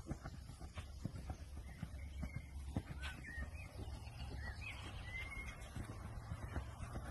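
Exmoor pony's hooves thudding softly and irregularly on a sand arena surface at trot and canter, under a low steady rumble. A bird chirps a few times in the middle.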